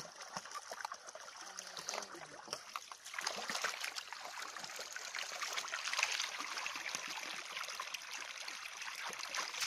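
Water pouring out of a plastic irrigation pipe into a shallow muddy channel, a steady rushing flow that gets louder about three seconds in, with small splashes of bare feet wading through the water.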